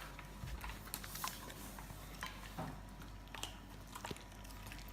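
Faint, scattered light clicks and taps, a few each second, over a quiet room background.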